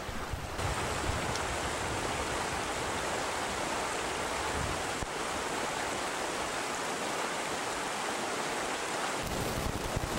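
Steady rushing of shallow river rapids over rocks.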